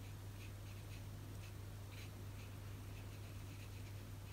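Faint, repeated short strokes of a fine paintbrush brushing watercolour paint onto a paper swatch card, over a steady low hum.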